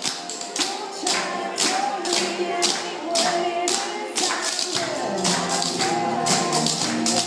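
Clogging shoe taps striking a hard floor in quick rhythm, over a recorded song with singing and a steady beat.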